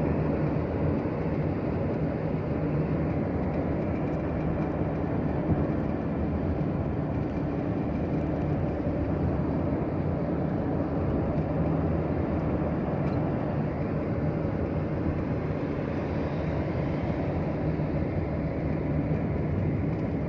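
Steady low rumble of a running vehicle, with a faint constant hum running through it.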